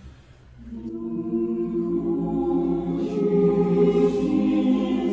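Voices singing long held notes together, chant-like, starting after a short lull about a second in.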